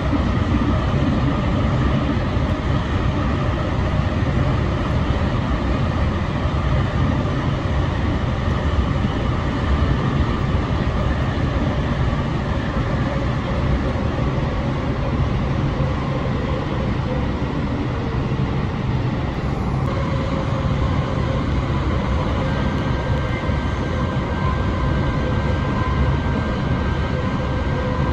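San Diego Trolley light-rail car running at speed, heard from inside the car: a steady rolling rumble of wheels on rail. A faint steady whine joins in about two-thirds of the way through.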